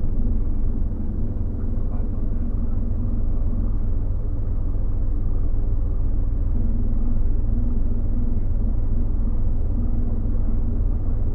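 Scania OmniLink single-deck bus driving along, heard from inside the passenger saloon near the back: a steady low engine and drivetrain rumble with a faint hum.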